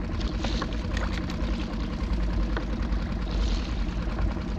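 A small boat's motor running steadily at low trolling speed, a constant low rumble.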